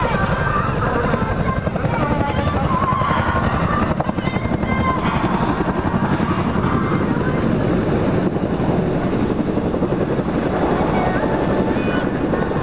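CH-47JA tandem-rotor helicopter flying a low display pass, its two rotors beating with a loud, rapid, steady chop.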